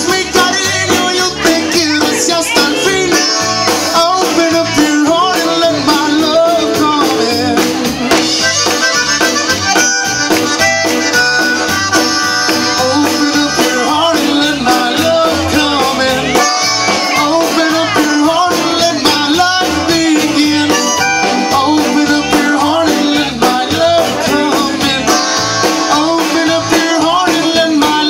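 Live band music: a diatonic button accordion carrying the melody over electric guitar and a steady drum beat.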